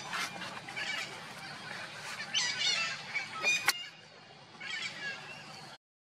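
Long-tailed macaques giving several short high-pitched squeals during rough play-biting. The loudest calls come a little past the middle, and the sound drops out briefly near the end.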